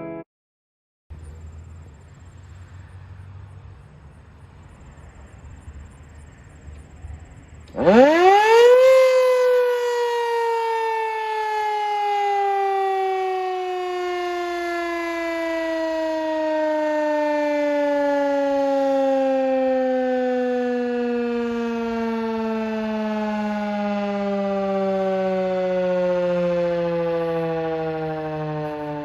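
Civil defense warning siren: after a few seconds of faint low rumble it spins up sharply to full pitch about eight seconds in, then winds slowly down in pitch as it coasts, still sounding near the end.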